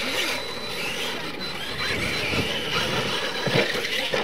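Brushless electric R/C monster trucks racing over a dirt track: a steady mechanical whine from the motors and drivetrains that wavers in pitch with the throttle, over the rush of tyres on dirt. A few dull knocks come in the second half as the trucks land off the jump ramps.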